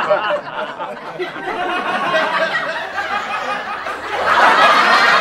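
Studio audience laughter, a sitcom laugh track of many people chuckling together, swelling louder near the end.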